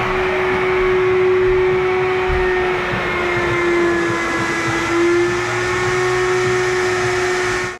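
Bucket-top wet/dry shop vac running steadily, sucking up standing water from a floor. The motor's whine dips a little in pitch midway, then recovers.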